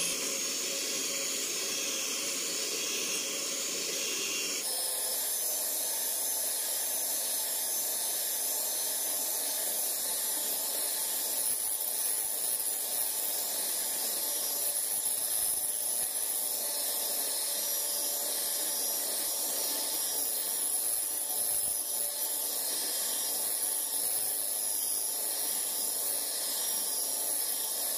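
A 450 W electric hand mixer running steadily, its beaters whipping eggs and sugar into a thick, pale foam (the ribbon stage). The sound changes abruptly about five seconds in.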